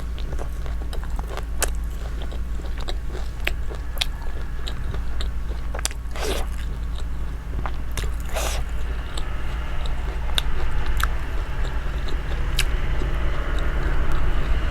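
Close-miked eating: biting and chewing with many small wet clicks, and two longer breathy sounds about six and eight and a half seconds in, over a steady low hum.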